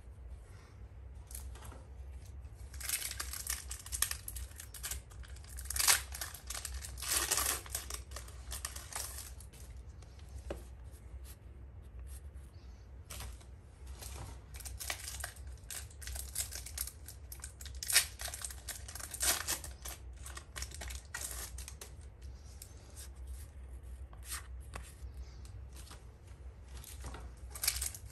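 Pokémon booster pack's foil wrapper being torn open and crinkled in the hands, with the loudest tearing from about 3 to 9 seconds in and lighter crackling and rustling after.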